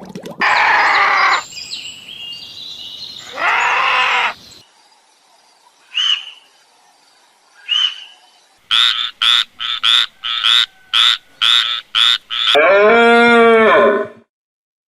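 A string of different animal calls, one after another: two loud calls, two short chirps, a quick run of about eight short, sharp calls, then a longer call with a bending pitch.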